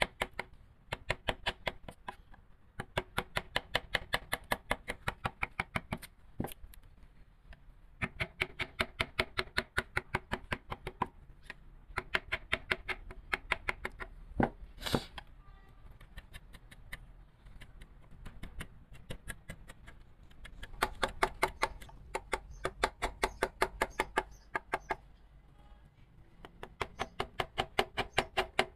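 Mallet tapping a carving chisel into wood: quick, even taps, several a second, in runs of a few seconds with short pauses, and one harder blow about halfway through.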